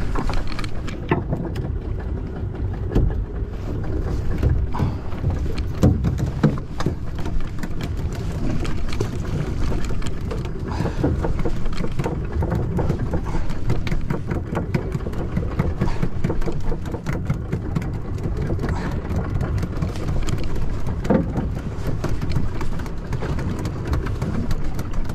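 Steady low rumble and wash of wind and water around a small fishing boat at sea, with scattered light knocks.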